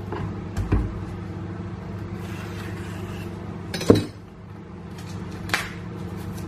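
Kitchen knife cutting through a thick leek and knocking on a wooden cutting board, three separate knocks with the loudest about four seconds in, over a steady low hum.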